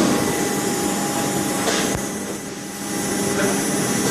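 Squid-processing food machinery running with a steady mechanical hum and noise, with one sharp click about halfway through.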